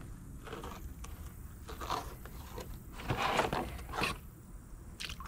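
Fillet knife scraping and slicing through catfish skin and flesh on cardboard, with short crunchy scrapes that come thickest about three to four seconds in. A steady low rumble of wind on the microphone runs underneath.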